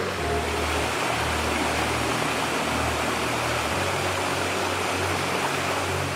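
Creek water rushing steadily over rocks in a small cascade: an even, unbroken rush.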